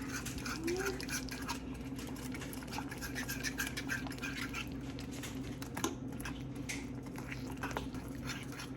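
Chicken pieces cooking in a pan with cream sauce, sizzling with scattered small crackles and pops over a steady low hum.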